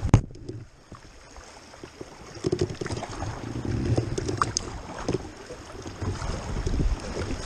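Kayak moving through shallow, choppy river water: water rushing and splashing against the hull, with paddle strokes and wind on the microphone. A sharp knock comes at the very start, and the water noise builds again after about two seconds.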